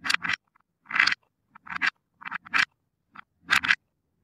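Plastic cup scooping through a wooden bowl of toy balls, making a series of short rattling scrapes roughly every half second to second, with silence in between.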